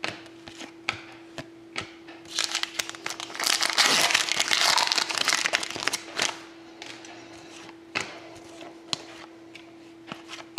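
A hockey card pack wrapper being torn open and crinkled for a few seconds, with light clicks of trading cards being handled before and after.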